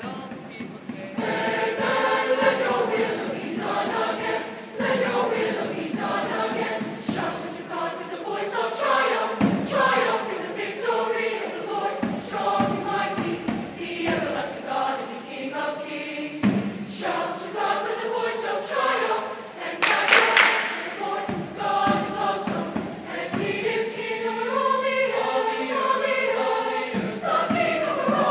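A middle school mixed choir of boys and girls singing together, phrase after phrase, with a brief hiss about two-thirds of the way through.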